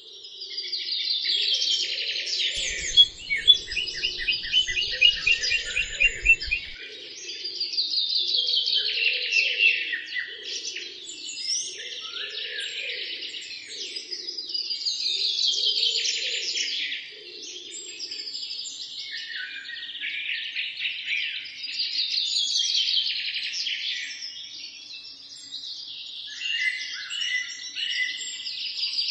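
Birds chirping and singing in a dense chorus of chirps and trills, with a pattern that repeats about every seven seconds. A run of low knocks comes between about three and seven seconds in.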